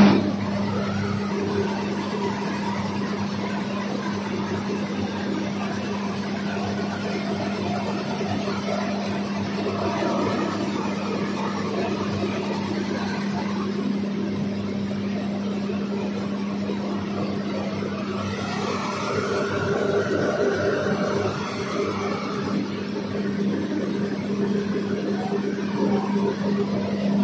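Five-fan seed gravity separator running steadily: its blower fans and oscillating deck make a constant machine hum with a steady low tone.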